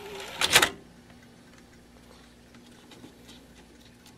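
Plastic disc tray of a DVD player pushed in by hand, closing with a clatter about half a second in. The tray's loading belt is slipping, so the tray has to be helped shut. Afterwards there are a few faint ticks over a low, steady hum.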